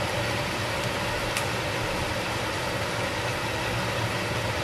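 Chicken pieces frying in a pot, a steady sizzle over a steady low hum.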